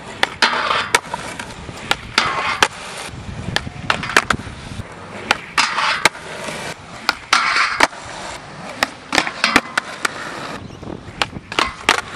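Skateboard wheels rolling on a concrete skatepark, in rushes of about a second each, broken by many sharp clacks of the board hitting the ground.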